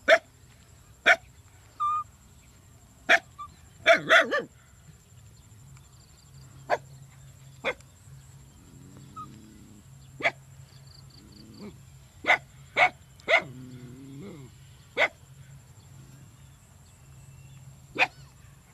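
A scattering of short, sharp animal calls, about a dozen, several coming in quick runs of two or three, over a faint steady high whine.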